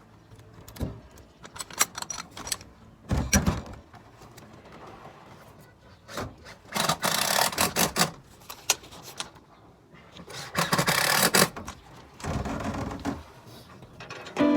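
Hand-tool work noises: scattered clicks and knocks, with two longer rasping, scraping bursts, one about seven seconds in and one about eleven seconds in.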